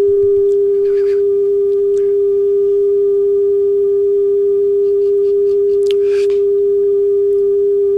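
Steady 400 Hz test tone from an RCA speed-test tape played back on a Craig/Pioneer 3108A 8-track player. The tone reads about 401 Hz, within the 395–405 Hz spec, so the tape speed is correct.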